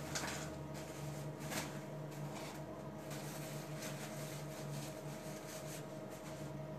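Faint room tone: a steady low hum and hiss with a few soft rustles and clicks, and no programme sound or music.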